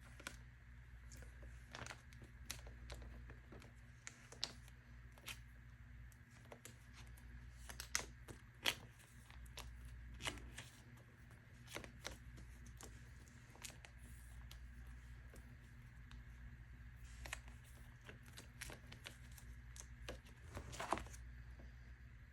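Photocards being handled and slid into plastic binder sleeves: faint scattered clicks and plastic rustles, with a few louder taps around eight to nine seconds in and again near the end, over a low steady hum.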